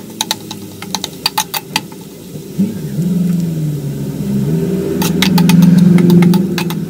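Metal spatula scraping and clicking against a metal wok as minced garlic is stirred in hot oil, in quick runs of strikes at the start and again near the end. Under it runs a low motor-like drone that rises about two and a half seconds in and is loudest shortly before the end, then eases off.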